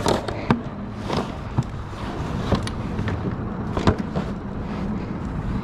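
Sharp plastic knocks and clatter, about six in all and spaced irregularly, as a cooler lid and gear are handled in a small plastic boat. A steady low rumble runs underneath.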